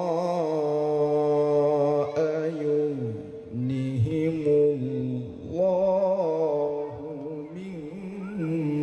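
A man reciting the Qur'an in the melodic tilawah style into a microphone. He sings long held notes with a wavering, ornamented pitch and takes short pauses between phrases.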